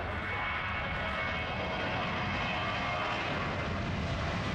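Twin-engine Boeing 737 jet airliner's engines at takeoff power during the takeoff roll: a steady rush of jet noise with a faint whining fan tone over it.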